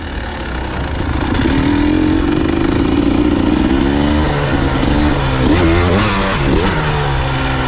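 Dirt bike engine revving, its pitch climbing and holding for a couple of seconds, then rising and falling repeatedly as the bike is ridden over the track's obstacles.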